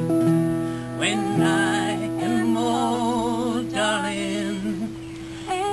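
Live acoustic song: a strummed acoustic guitar accompanying a woman singing with vibrato, her voice wavering on held notes.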